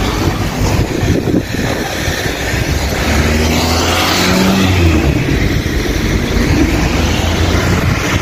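Road traffic: motor vehicles passing on a city street, with one engine running close by for a couple of seconds around the middle.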